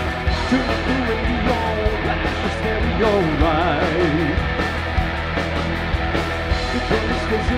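Music with a steady beat. A wavering melody line rises and falls between about three and four and a half seconds in.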